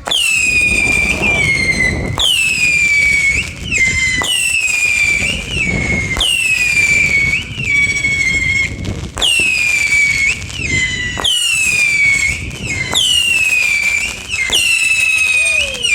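A 16-shot consumer firework cake firing shot after shot, about one every one to two seconds. Each launch is followed by a whistle that falls in pitch.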